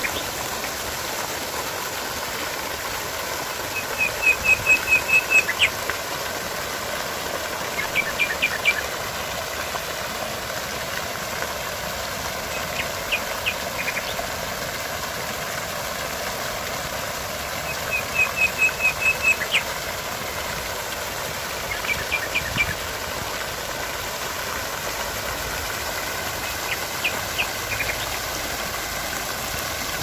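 Fountain jets splashing steadily into a stone basin. Over the water, loud runs of quick, high chirping notes recur every four or five seconds, some about eight notes long and others only two or three.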